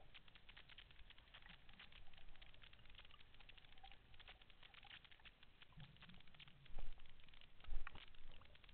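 Underwater crackle of many fine clicks picked up by a camera held in the sea, with a few louder thumps and water splashes near the end as the camera breaks the surface.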